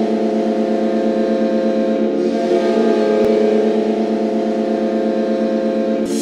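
Carolina Hurricanes arena goal horn blowing one long, unbroken blast, steady in pitch, signalling a home-team goal.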